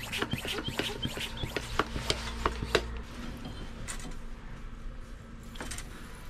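Rapid light clicks and tapping from hands working a cooling-system pressure tester's hose and fittings on the heat exchanger cap. The clicks come thick for about three seconds, then thin out to a few.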